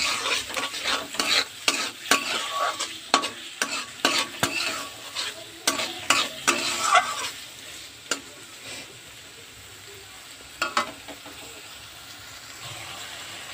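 Metal spatula scraping and knocking against a metal kadai as green peas are stirred into spice paste frying in oil, with a sizzle underneath. The stirring strokes come quickly for about the first seven seconds, then thin out to a few single knocks over a quieter sizzle.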